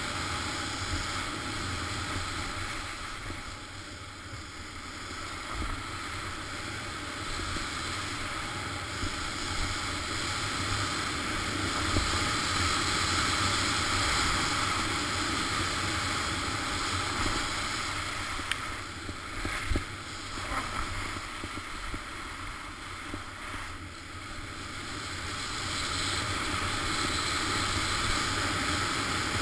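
Wind rushing over the camera's microphone and skis hissing over groomed snow during a downhill ski run, a steady rushing noise with a low rumble that swells and eases, with a few brief scrapes about two-thirds of the way through.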